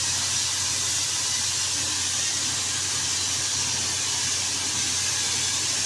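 Air-fed paint spray gun with a gravity-feed cup hissing steadily as it sprays paint, with a steady low hum underneath.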